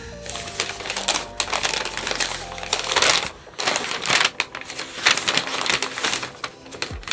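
Plastic bubble-wrap packaging being handled and unwrapped by hand, crinkling and rustling with many small irregular crackles.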